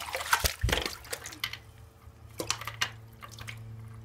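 A hooked walleye splashing and thrashing in the water of an ice-fishing hole: a flurry of sharp splashes in the first second and a few more about two and a half seconds in, over a steady low hum.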